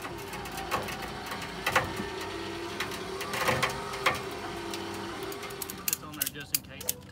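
Ratchet tie-down strap being cranked tight over a wheel on a car trailer: the ratchet gives scattered sharp clicks and clacks, then a quick run of clicks near the end.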